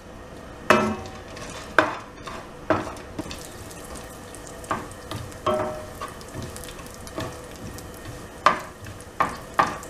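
Chopped cashew and almond pieces frying in hot ghee in a nonstick pan, a faint steady sizzle, stirred with a wooden spatula that knocks and scrapes against the pan at irregular intervals.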